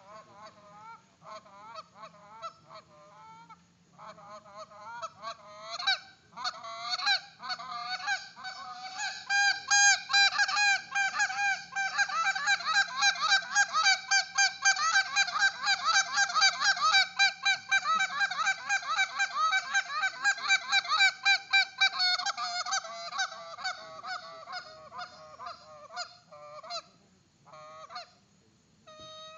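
Goose call blown in a competition calling routine: a few spaced honks and clucks at first, building about six seconds in to a loud, fast run of clucking notes that carries on until past the middle, then tapering back to a few spaced honks near the end.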